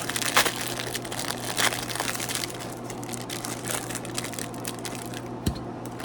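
Wrapping crinkling and crackling irregularly as it is handled, with one short knock about five and a half seconds in.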